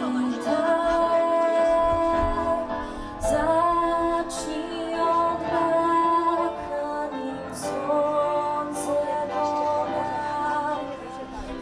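Music with a woman singing a melody of long held notes.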